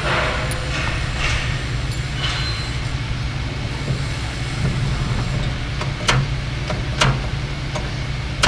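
Engine lathe running with its chuck spinning, a steady low drone. A few sharp metallic clicks come about six and seven seconds in and again at the end.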